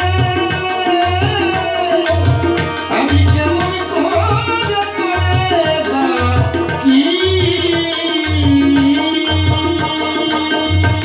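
Bengali baul folk song: a man singing over sustained harmonium chords, with tabla accompaniment whose deep bass-drum strokes come about once a second.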